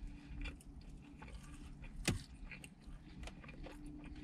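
Quiet eating sounds: scattered soft crunches and clicks of someone biting and chewing French fries, with one sharper click about two seconds in, over a faint steady hum.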